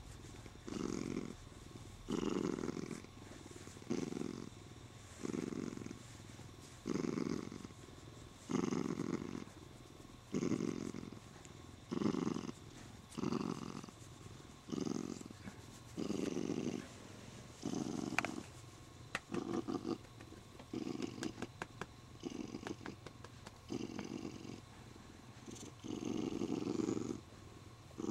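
Siamese cat purring contentedly while being stroked, the purr swelling and fading in pulses about once a second with each breath. A run of small clicks partway through.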